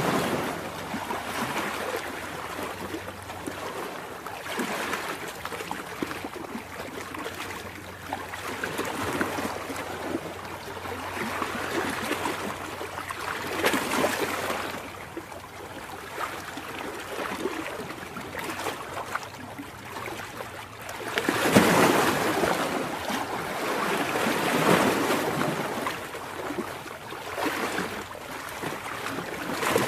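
Ocean surf: waves washing and breaking on a beach, rising and falling in slow surges every few seconds, with one bigger surge a little past the middle.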